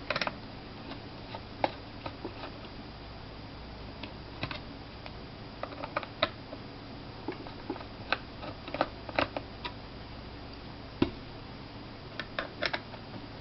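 Small Phillips screwdriver turning screws out of a laptop hard drive's metal caddy: scattered, irregular light clicks and ticks over a faint steady low hum.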